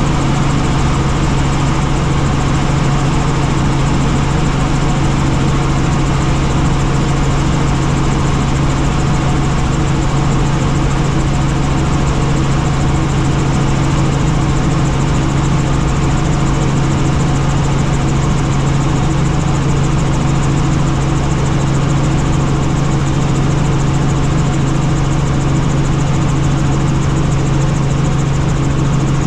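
Helicopter engine and rotors running steadily: an unchanging loud drone with a strong low hum.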